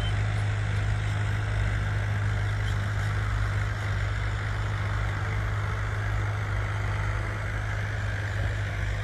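Tractor diesel engine running steadily, a deep even drone with a constant low hum.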